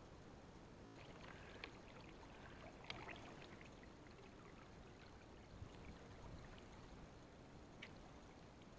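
Faint water sounds: small splashes and trickling over a low steady background, with a cluster of light clicks and splashes between about one and three seconds in and one more near the end.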